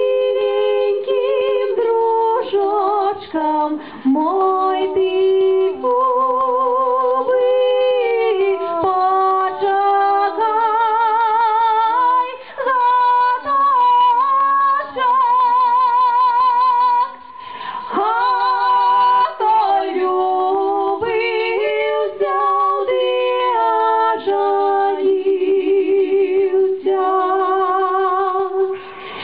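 Two women singing a Belarusian folk song in two-part harmony, with vibrato on the held notes and a brief pause between phrases partway through.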